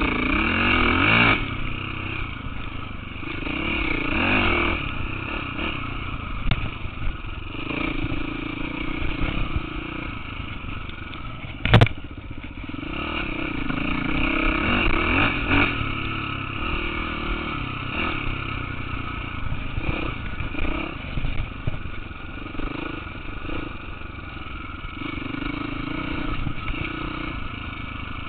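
Dirt bike engine running under a rider, revs rising and falling with the throttle every few seconds, with one sharp knock about twelve seconds in.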